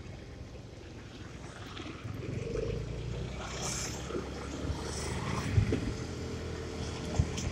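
Motorcycle engine running while riding, with a steady low rumble of engine and passing air; it grows louder about two seconds in.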